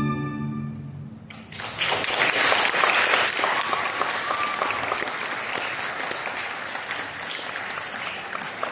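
The string ensemble's last held chord dies away, and about a second in the audience breaks into applause that carries on steadily.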